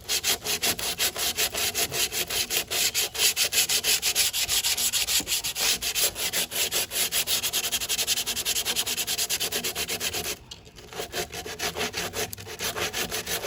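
Sandpaper scraping over cured body filler (Bondo) on car bodywork. It goes in quick, even back-and-forth strokes, about three or four a second, with a short break about ten seconds in.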